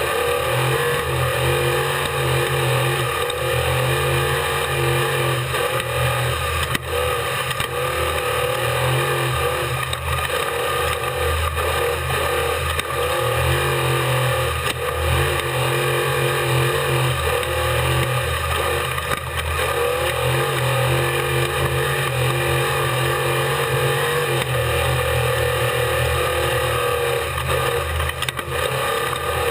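Off-road race vehicle's engine running continuously through a race lap, its note wavering without any big rev sweeps, over a constant loud haze of wind and rattle noise.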